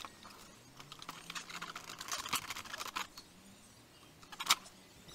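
Light clicks and rattles as a motorcycle's fuel tank is handled and seated back on the frame, with one sharper click about four and a half seconds in.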